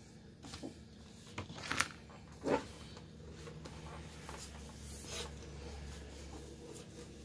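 Paper rustling and handling noises, with scattered rustles and clicks and one dull knock about two and a half seconds in, as a paper sheet and a rotary paper cutter board are handled.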